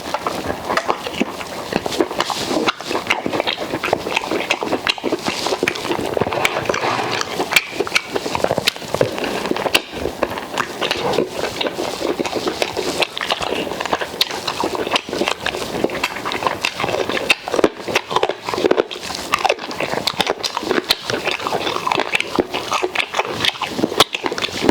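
Close-miked eating sounds: a person chewing and lip-smacking through mouthfuls of fufu, okra soup and grilled pork, a steady run of small smacks and clicks.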